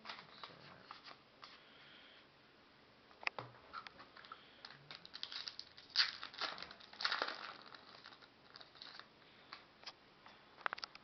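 A baseball card pack wrapper crinkling and tearing as it is opened, with cards being handled; the crackles come thickest midway through.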